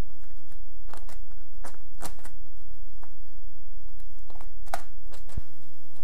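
Sheet of vinyl wrap film rustling and crinkling as it is handled and peeled, in a string of short, sharp crackles.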